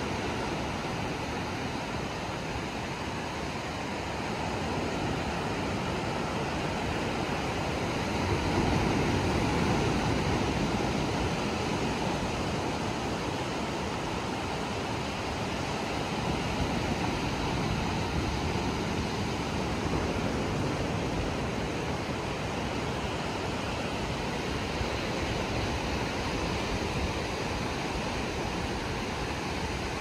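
Ocean surf breaking and washing up the beach in a steady rush, swelling a little louder about nine seconds in.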